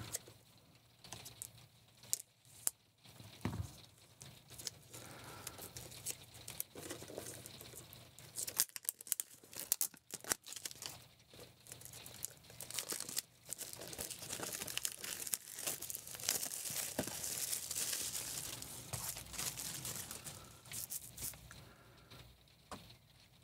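Plastic shrink wrap being torn and peeled off a 4K Blu-ray steelbook case. It gives irregular small ticks and rustling, with a longer, denser stretch of rustling about two-thirds of the way through.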